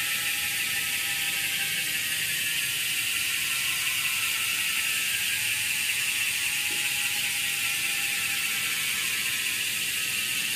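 Deep-section carbon rear wheel of a road bike spinning freely on a repair stand, its freehub ticking so fast it runs together into a whir, slowly dropping in pitch as the wheel coasts down.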